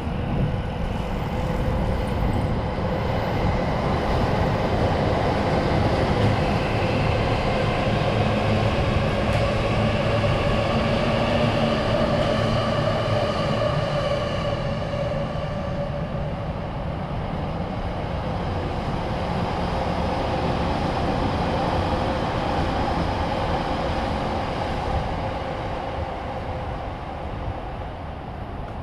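Electric commuter train running past on the tracks beside the street: wheel rumble with a motor whine at several pitches. It is loudest in the first half and slowly fades toward the end.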